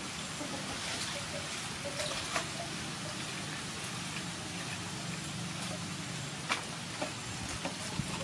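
Hands washing vegetables in a metal basin of water: light splashing and sloshing with a few short sharp clicks, over a steady background hiss.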